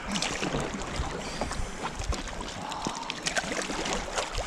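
Fast river current rushing and splashing around an inflatable kayak, with irregular short splashes from paddle strokes in the water.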